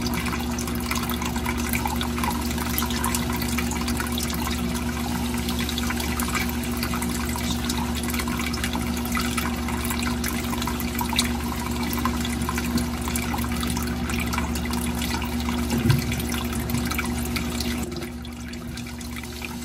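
Steady trickling, bubbling water over a low steady hum, as from the water filter of a small crocodile tank; the trickle turns quieter near the end.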